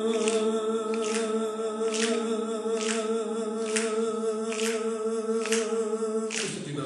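A man's voice holding one long sung note with a wavering vibrato, ending about six and a half seconds in. A light click sounds roughly once a second throughout.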